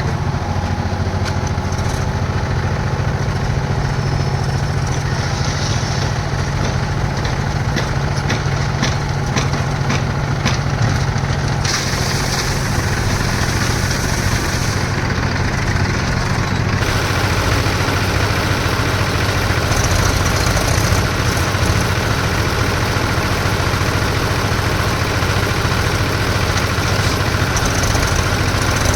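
Concrete mixer's engine running steadily, with a run of rattling clicks in the first half and a change in the higher sound partway through.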